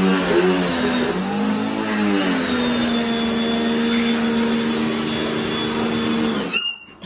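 Pioneer P1 electric pressure washer running as it sprays: a steady motor-and-pump hum with a high whine over the hiss of the water jet, its pitch dipping briefly twice in the first couple of seconds as the load changes. It stops suddenly about six and a half seconds in.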